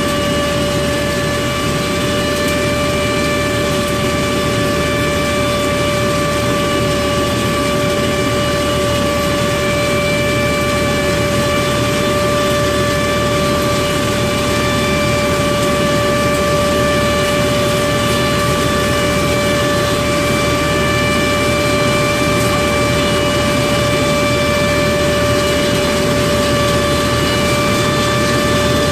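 Hasatsan H 1800 hazelnut harvesting machine running steadily as it sweeps nuts up off the leaf-covered ground: a constant engine and machinery noise with a steady high whine over it.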